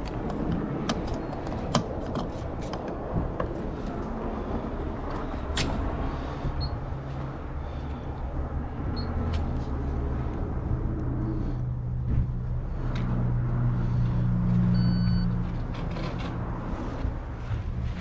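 Low rumble of vehicle engines running at a petrol station, swelling louder a little past the middle, with scattered sharp clicks and knocks mostly in the first few seconds.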